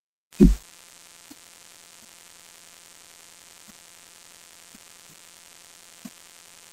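A single loud low thump about half a second in, then a steady faint hum and hiss with a few soft clicks, which cuts off suddenly near the end.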